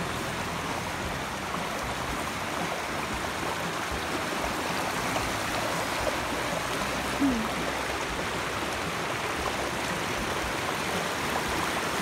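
Shallow river flowing over rocks and stones: a steady, even rush of water, with one short brief sound about seven seconds in.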